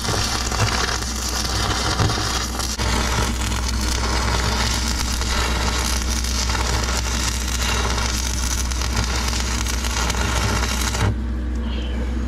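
Stick-welding arc crackling and hissing steadily as a run is laid on a steel bucket with a new rod, cutting off about a second before the end. A steady low hum sits under it.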